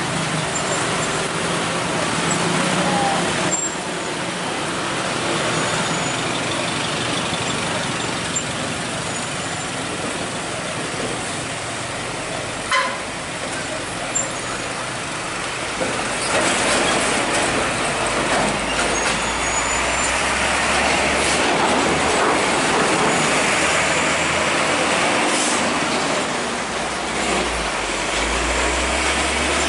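Heavy road traffic: truck and motorcycle engines running and passing, with a few short sharp sounds around the middle. A low engine rumble grows louder near the end as a truck passes close by.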